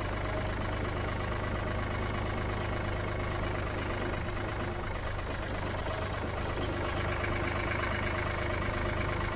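1965 Ford 3000's three-cylinder diesel engine running steadily as the tractor crawls along in low range, lowest gear.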